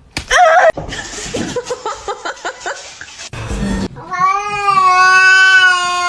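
A house cat yowling: a short wavering yowl at the start, then a thump, then one long drawn-out yowl held at a nearly even pitch for about three seconds.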